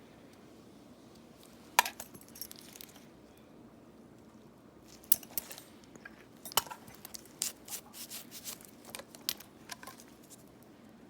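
Metal pedicure tools making sharp clicks and clinks, one about two seconds in and then a quicker run of them in the second half, against faint room hiss.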